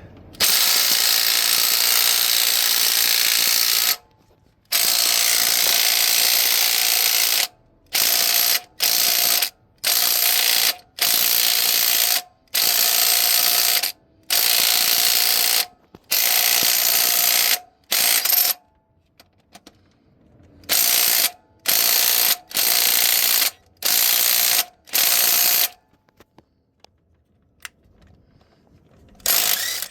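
Power ratchet run on the harmonic balancer installer tool, pressing the new balancer onto the crankshaft of a 2001 Chevrolet Tahoe: two long runs of a few seconds, then a string of short pulses about a second each, and one last brief pulse near the end.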